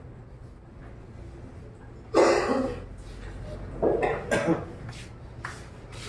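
A person coughing: one loud sudden cough about two seconds in, then two shorter coughs around four seconds in, over a low steady hum.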